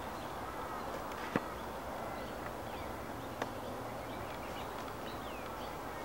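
Many birds chirping and whistling in short calls over a steady background hiss, with two sharp clicks, one about a second and a half in and a fainter one about three and a half seconds in.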